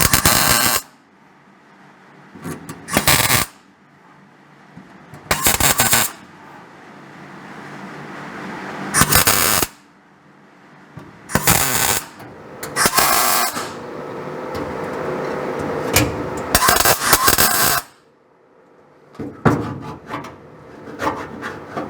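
Arc welder laying a series of short tack and stitch welds on a steel patch plate: about eight bursts of crackling arc noise, each under a second long, at irregular intervals, with a softer steady noise swelling between them.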